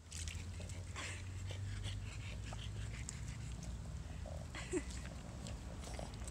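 Small dog moving about in a shallow puddle: faint splashing and lapping of water, with a low steady hum in the first two seconds. The dog makes one brief low sound, falling in pitch, about five seconds in.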